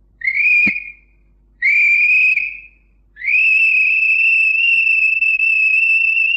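Three high whistled tones at a nearly steady pitch: two short ones, then a long held note of about three seconds that cuts off sharply.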